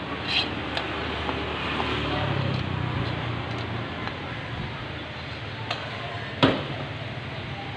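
A metal spoon scraping and clicking against a wok as stir-fried papaya leaves are served out, with a sharp knock about six and a half seconds in. A motor vehicle's engine hums in the background for a couple of seconds.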